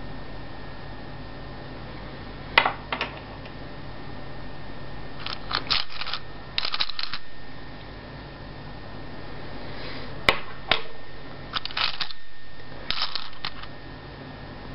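Steady low room hum with scattered groups of short clicks and rustles, about eight in all and unevenly spaced.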